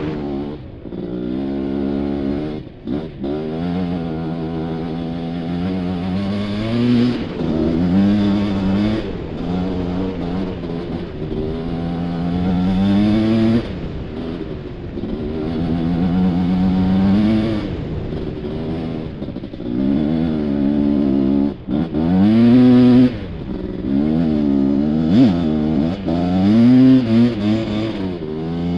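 Suzuki LT500R Quadzilla's two-stroke ATV engine under hard throttle on sand dunes, its pitch rising and falling again and again as it revs up, backs off and shifts, with brief throttle-offs a few seconds in and about two-thirds of the way through.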